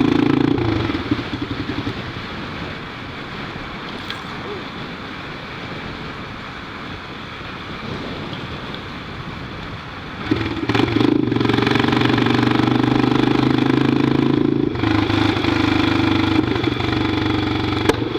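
Honda NX Falcon's single-cylinder engine through a loud aftermarket exhaust pipe while riding: loud under throttle at the start, dropping back for about nine seconds, then loud again from about ten seconds in, with a brief dip near fifteen seconds.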